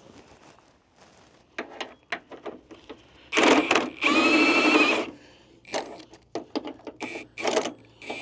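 A power tool on a bolt, run in short bursts: a half-second burst, then about a second of steady running in the middle, then several shorter bursts near the end, with clicks and knocks of tools on metal between them.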